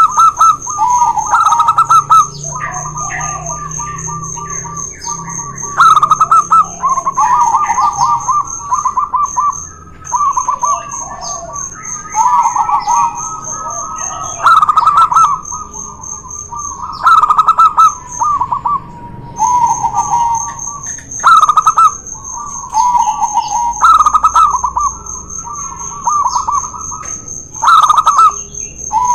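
Zebra doves singing against each other: loud, repeated phrases of quick stuttering, trilled cooing notes, a new phrase every second or two, the birds' phrases at times overlapping. A thin steady high whine runs underneath, dropping out briefly about two-thirds of the way through.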